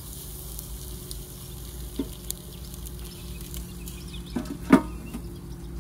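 Whole trout in a wire grill basket sizzling on a portable gas-cartridge grill, a steady hiss with a few light clicks and one louder knock a little before the end.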